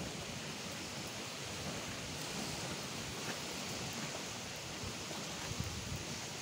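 Steady outdoor hiss of wind and surf, with soft low thumps of wind against the microphone.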